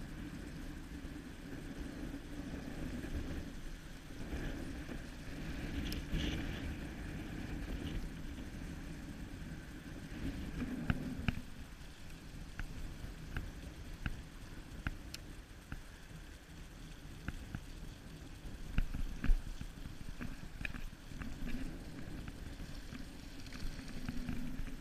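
Low, steady wind rumble on the microphone, with scattered light clicks from about halfway through.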